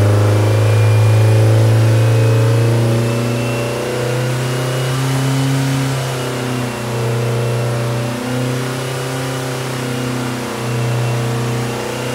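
Freshly built 1914cc VW air-cooled flat-four with dual 44 IDF Weber carburetors running on a dyno stand, just through its 20-minute break-in. It is louder for the first three seconds or so, then runs a little lower with a few brief dips in speed.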